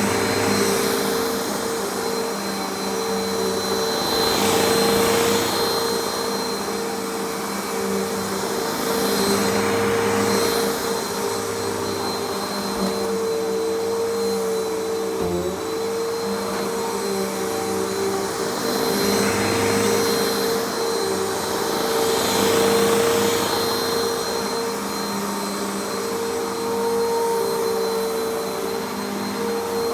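Hoover vacuum cleaner running with its brush roll on, a steady motor hum that swells and eases every few seconds.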